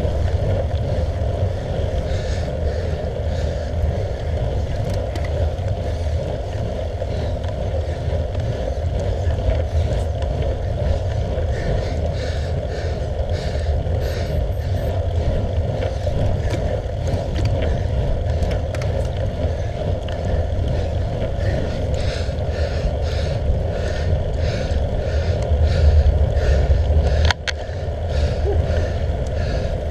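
Wind buffeting and road rumble on the microphone of a handlebar-mounted camera as a road bike rides uphill: a steady low rumble, with a sharp knock near the end.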